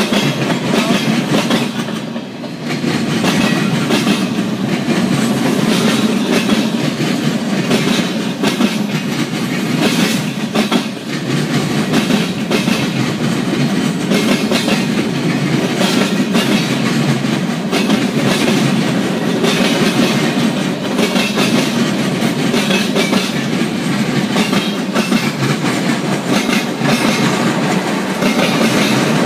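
A freight train's cars rolling past, steel wheels clacking steadily over the rail joints above a continuous rumble.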